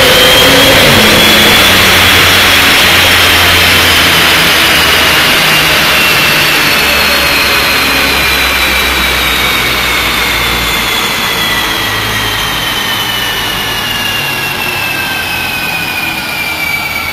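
Stage 1 tuned Audi RS6's twin-turbo V10 ends a full-throttle dyno pull about a second in. The driven wheels and dyno rollers then coast down, a high whine slowly falling in pitch and fading.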